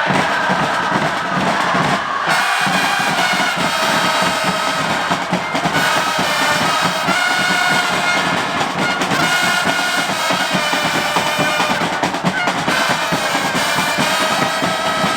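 Football supporters' stand band: drums beating fast and steadily while trumpets play a chant tune, coming in strongly about two seconds in, over a chanting stadium crowd.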